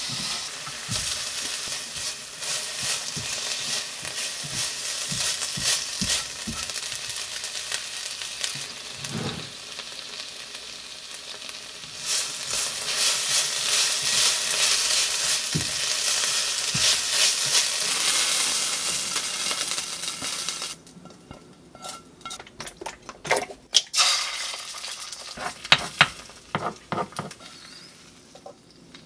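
Kimchi fried rice sizzling in a nonstick frying pan as it is stirred and scraped with a silicone spatula. About two-thirds of the way through the sizzling cuts off, followed by scattered clicks and light knocks of utensil on pan.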